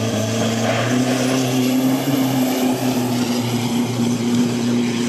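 Holden Colorado drag ute's engine running hard down the drag strip, heard as a steady drone, with a faint high whine rising about a second in.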